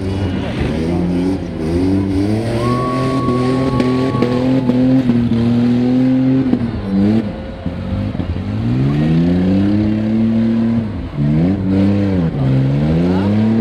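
Engines of several demolition-derby pickup trucks revving hard, their pitch climbing and falling again and again as the trucks accelerate, back off and push into each other.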